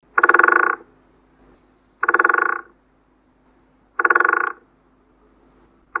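Great spotted woodpecker drumming: short, very fast rolls of strikes, three of them about two seconds apart, with a fourth starting at the very end.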